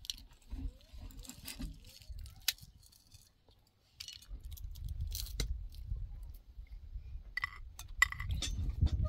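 Scattered light clinks and taps, a few with a short ring near the end. A low rumble sets in about four seconds in.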